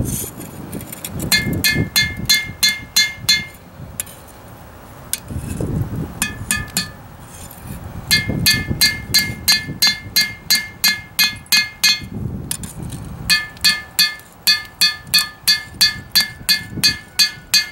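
Hand hammer striking a hot steel knife blank on an anvil, each blow ringing bright and metallic. The blows come in runs of several to a dozen, about three a second, with short pauses between runs.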